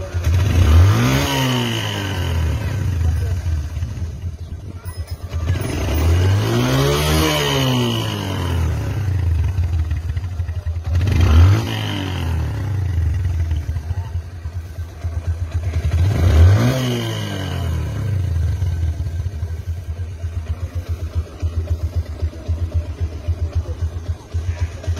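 Bajaj Discover 135's single-cylinder four-stroke engine idling with a steady pulsing beat, blipped up and back down four times, the second rev held longest.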